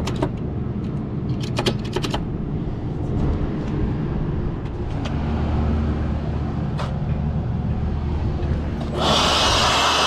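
Steady low rumble of rooftop machinery, with a few sharp clicks from handling the control-panel wiring. About nine seconds in, a Milwaukee 18V cordless blower starts abruptly with a loud, steady rushing whine as it blows into the unit's control box.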